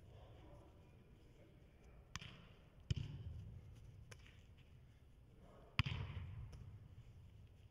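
A soccer ball being struck on an indoor artificial pitch: a few sharp thuds with a reverberant tail from the large hall. They come about two seconds in, again just before three seconds, and loudest about three-quarters of the way through.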